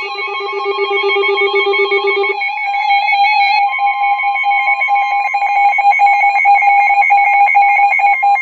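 A weather alert radio's electronic alarm sounding: several high beeping tones trilling rapidly. About two and a half seconds in, the lowest tone drops out, and about a second later a steady single tone joins underneath.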